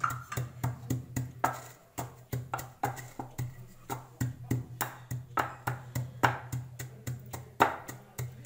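Wooden pestle pounding whole spices (pomegranate seeds, coriander seeds, black peppercorns and cumin) in a wooden mortar: a steady run of dull knocks, about three a second, as the seeds are crushed.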